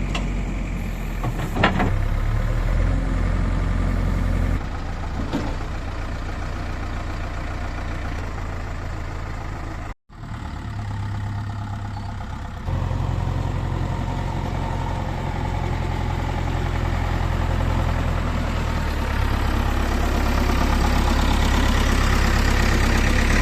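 Diesel engine of heavy earthmoving machinery running steadily, with a single sharp knock about a second and a half in. The sound drops out briefly about ten seconds in and comes back louder and steady.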